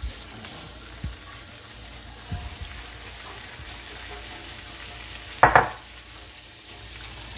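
Meat searing in a cast iron skillet: a steady sizzle, with a couple of light knocks and one brief, louder noise about five and a half seconds in.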